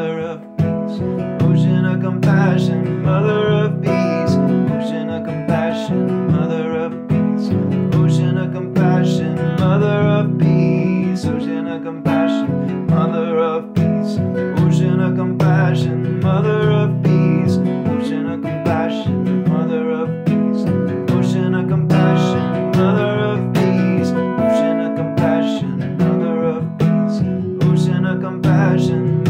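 Acoustic guitar strummed in a steady rhythm, accompanying a man singing a devotional chant.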